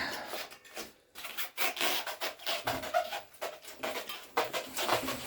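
Irregular scraping and rubbing of metal bicycle parts being worked by hand, with a short pause about a second in.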